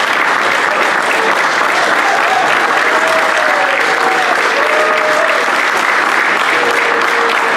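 Audience applauding, a dense, steady clapping that holds at the same level throughout.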